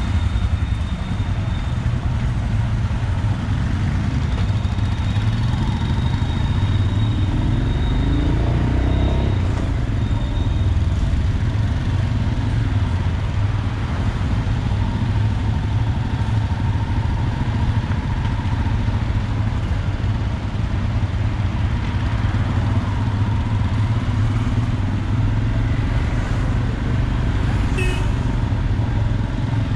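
Royal Enfield Himalayan 411cc single-cylinder motorcycle engines running steadily at low speed while riding, a continuous low drone with road noise.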